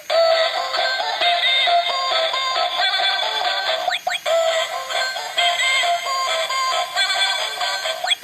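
Battery-operated toy cat playing an electronic melody with synthesized singing through its small speaker. The sound is thin, with no bass, and there is a short break with a quick pitch sweep about halfway through.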